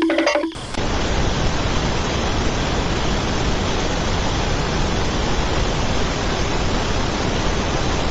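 A steady, even rushing hiss that starts abruptly about half a second in, just as music cuts off.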